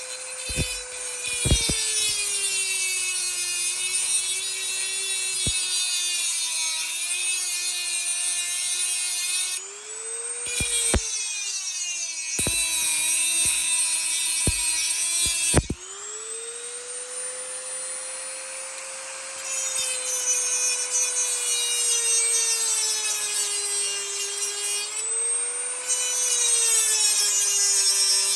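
Dremel rotary tool with a cut-off wheel grinding through a metal push-nut cap on an axle: a high motor whine with a gritty cutting hiss, its pitch sagging as the wheel bites and rising again each time it is eased off, a few times.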